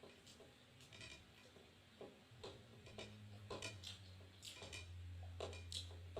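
Faint eating sounds: soft, irregular clicks and smacks from chewing and handling food. A low steady hum grows stronger about halfway through.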